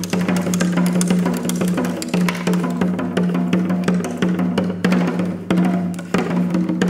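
Live band music led by fast, dense drumming on a drum kit, over a steady held low note.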